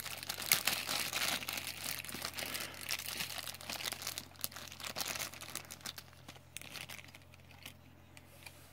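Bags crinkling and rustling as loose die-cast toy cars are taken out of them: dense crackling that thins out and fades over the last couple of seconds.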